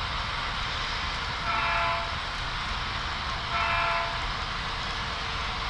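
HO scale model locomotive's DCC sound decoder sounding a multi-note air horn in two short blasts, about two seconds apart, over a steady background rumble and hiss.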